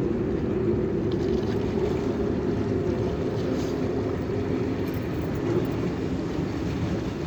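Boat engine running at a steady drone.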